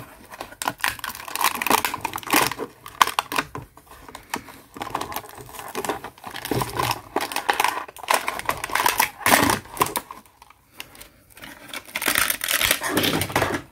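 Cardboard-and-plastic blister pack of a Hot Wheels die-cast car being handled and opened by gloved hands: irregular crackling, rustling and clicking of the card and stiff plastic.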